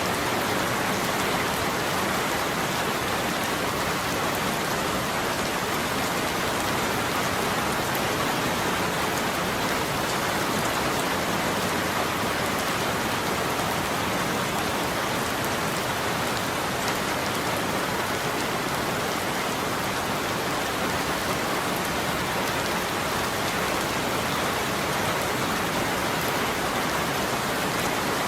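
Steady rain falling, an even hiss of many drops that never lets up, with no thunder or single louder drips.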